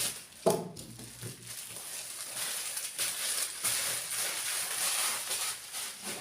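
Packaging being handled during an unboxing: rustling and crinkling, with a sharp knock about half a second in.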